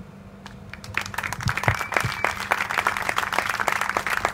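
Audience applauding, the clapping starting about a second in.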